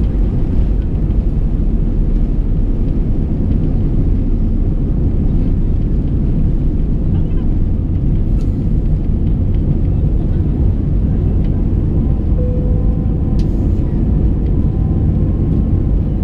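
Airbus A320 jet engines at takeoff thrust, heard from inside the cabin: a loud, steady rumble and rush of air as the aircraft lifts off and climbs away.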